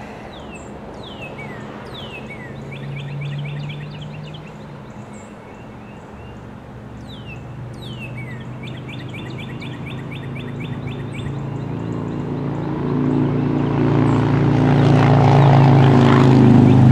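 Diesel freight locomotives (GE ES44AH) running, a low steady engine drone that grows louder through the last few seconds as the train nears. Songbirds sing with sweeping whistles and trills for roughly the first ten seconds.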